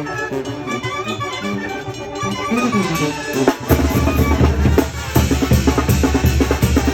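A band playing a son with an accordion melody. About three and a half seconds in, the drums and bass drum come in with a loud, driving beat.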